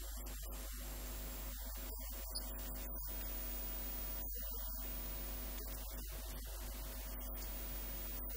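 Steady electrical mains hum over an even background hiss, with no speech.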